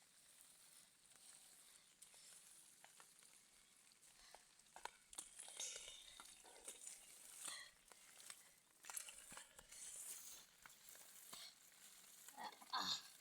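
Faint wet crackling and rustling of hands digging through mud in a riverbed hole, coming and going from about four seconds in, with a brief louder sound near the end.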